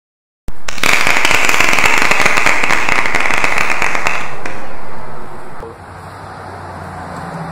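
A loud, dense crackling noise starts abruptly about half a second in and drops off sharply after about five seconds, leaving a much quieter steady background.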